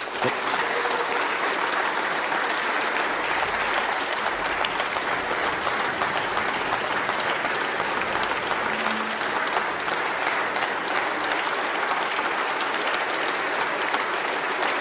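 Standing ovation from a chamber full of lawmakers: dense, steady clapping that starts suddenly and holds at an even level, with no break.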